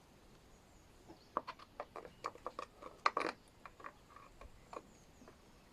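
A run of small, sharp clicks and taps from hand work on parts and tools while a lawnmower carburetor is being put back on, starting about a second in and loudest about three seconds in.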